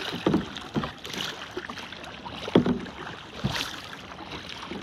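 Double-bladed paddle strokes from a tandem sea kayak: the blades dip and splash in the water in an uneven rhythm, with water washing along the hull. A few sharper splashes or knocks stand out, the loudest about two and a half seconds in.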